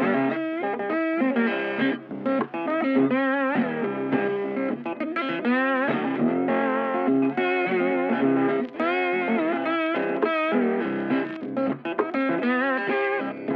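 Background music: a guitar-led instrumental, with a lead guitar playing a melody full of string bends and vibrato over a steady accompaniment.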